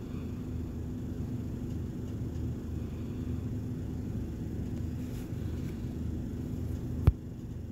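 Steady low background rumble with a faint hum, broken by a single sharp knock about seven seconds in.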